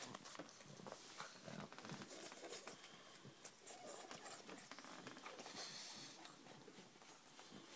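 Faint rustling and small irregular clicks as a pug shifts about in a dog bed draped with a cloth sheet.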